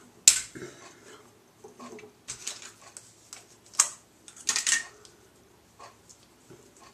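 Hands tousling and fluffing damp hair close to the microphone: irregular rustles and sharp crackles, loudest about a third of a second in and again around four and a half seconds in.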